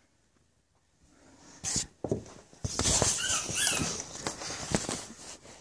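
An animal's two short, high squeaky calls a little past the middle, over loud rustling and knocking noise that starts abruptly after a quiet first second.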